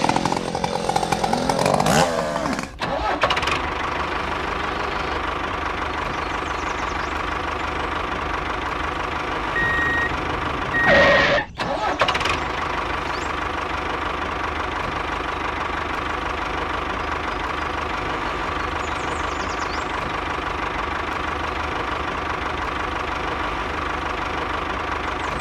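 A tractor engine running steadily at idle, dubbed over the toy tractor, after about three seconds of sounds that slide up and down in pitch. A short, louder burst breaks in about eleven seconds in.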